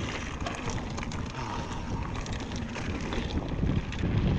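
Mountain bike riding along a forest singletrack: steady tyre and trail rumble with scattered small clicks and rattles, and wind rushing over the action-camera microphone.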